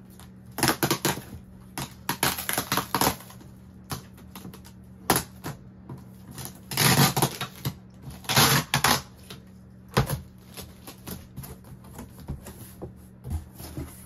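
Cardboard and plastic packaging being handled: irregular spells of rustling and crinkling with sharp clicks and knocks, the loudest rustles about seven and eight and a half seconds in.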